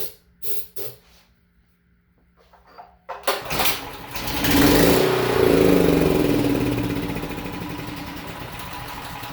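A few short hissing sprays of starter fluid into the air intake, then about three seconds in the Honda GX390 single-cylinder generator engine catches and runs, loudest a couple of seconds after starting and then easing off. Starting on starter fluid shows the engine itself is good and the carburetor is not feeding enough fuel: clogged jets.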